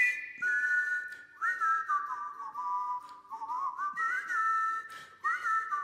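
A whistled tune: a melody of short, sliding notes, mostly in two parallel voices, as part of a background music track.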